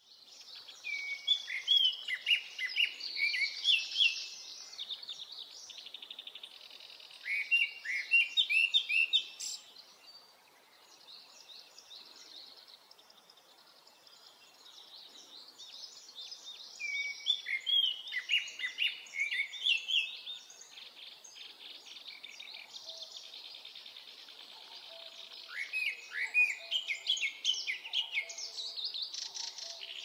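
A male Japanese thrush singing its breeding-season territorial and courtship song. Four loud phrases, each a quick run of falling whistled notes, come about every eight seconds, with softer twittering between them.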